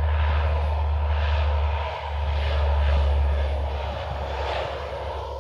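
Turboprop engines of a civilian C-130 Hercules running at power as it moves along the runway: a steady, loud, deep drone that swells about three seconds in and eases a little near the end.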